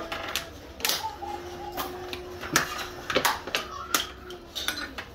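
Metal clicks and clinks of a spanner working on a Mitsubishi 4M50 in-line diesel injection pump while it is timed by hand on the bench. About six sharp clicks are scattered irregularly, and a steady held tone sounds in the background for about two seconds near the middle.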